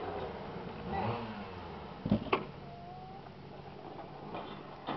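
Plastic toy push mower clicking as it is pushed over grass: two sharp clicks close together about two seconds in.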